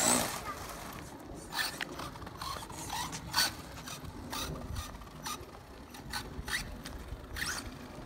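Brushless motor of a Team Associated SC10 RC truck whining up in pitch as the truck accelerates away, right at the start. After that, light scrapes and taps on asphalt, about two a second.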